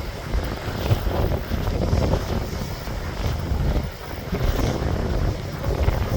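Ocean waves surging and breaking, the wash rising and falling in swells, with heavy wind buffeting the microphone as a constant low rumble.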